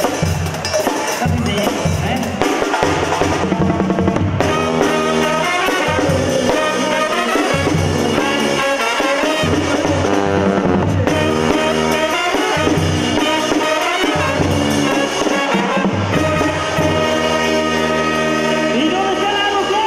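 A banda sinaloense playing live: timbales and a tambora bass drum with its mounted cymbal keep the beat under a brass section of trumpets, trombones and horns. The percussion is to the fore at first, and the brass comes in strongly a few seconds in.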